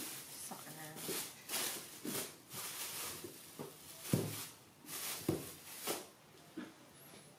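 Plastic bags rustling and crinkling in irregular bursts as they are handled and lifted out of a wicker basket, with a thump on the tabletop about four seconds in.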